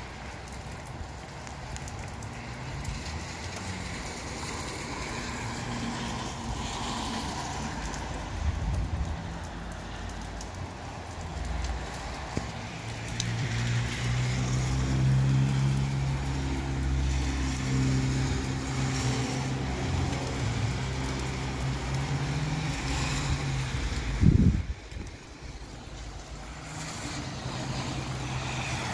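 Rain shower and breezy wind outside, an even hiss. For about ten seconds in the middle a low motor hum, like a vehicle running, rises over it, then stops with a sharp thump near the end.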